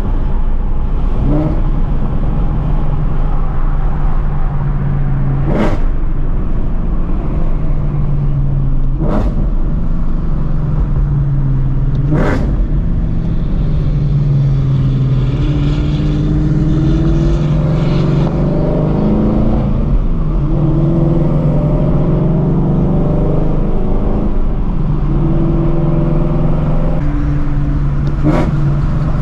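Straight-piped 2016 Shelby GT350's 5.2-litre flat-plane-crank V8, breathing through long-tube headers, running steadily in traffic: a loud, even low drone whose pitch shifts as the throttle is eased on and off. Four sharp cracks stand out over it, spread through the stretch.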